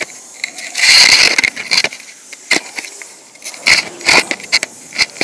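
Handling noise on the camera microphone as the camera is set down in a corner: scattered knocks and clicks, with a loud burst of rustling about a second in.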